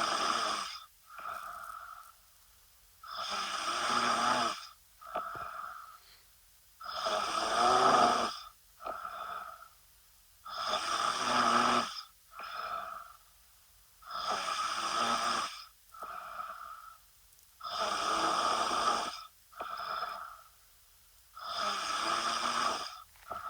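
A woman snoring in her sleep, in a steady rhythm about every three and a half to four seconds. Each long, loud snore is followed by a shorter, quieter, higher breath sound, about seven cycles in all.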